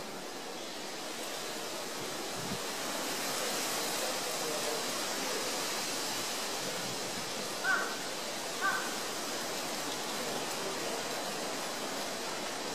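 Steady rushing noise like water or wind, with two short harsh animal calls about a second apart a little past the middle.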